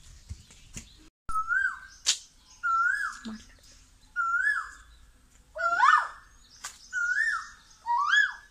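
Asian koel calling: a loud rising call repeated six times, about once every second and a half, with a couple of sharp clicks between calls.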